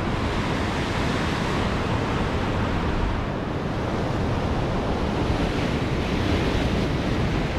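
Sea water surging and washing up over the rocks, with wind on the microphone: a steady rushing noise without separate splashes or knocks.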